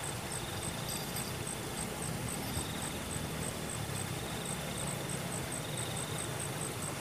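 Insects chirping: a steady high pulse about four times a second, with a wavering, higher trill that comes and goes, over a steady background hiss.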